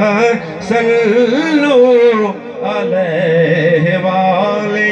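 Man singing a Punjabi devotional kalam through a microphone, drawing the line out in long wavering notes without clear words, with two brief pauses for breath.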